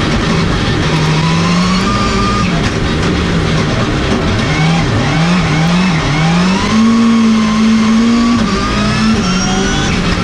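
Rallycross car at racing speed, heard from inside the cockpit. The drive note rises and falls with throttle and speed, swooping up and down a few times, and thin high whines climb in pitch over the road and tyre noise.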